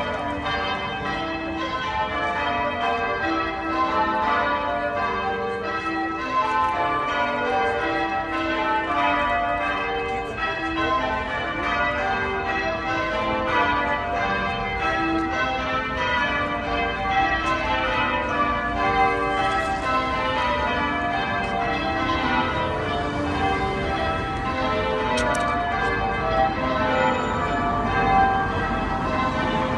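Ring of tower bells in St. Patrick's Cathedral, Dublin, rung in change ringing: many bells struck one after another in quick succession, their tones overlapping continuously. The bells are rung as mass ends.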